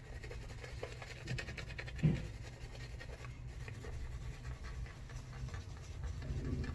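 Osiris Bladeworks Kukri 11/16 straight razor scraping stubble through shaving lather: a fine, dense scratching of many tiny ticks as the blade cuts the whiskers.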